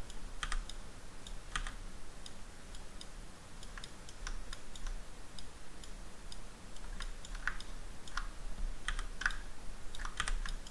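Clicks of a computer keyboard and mouse, irregular, roughly one a second with some in quick pairs, over a faint low hum.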